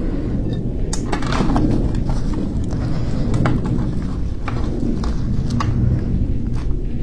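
Close-miked eating and handling noises: scattered sharp clicks and small crackles over a steady low rumble.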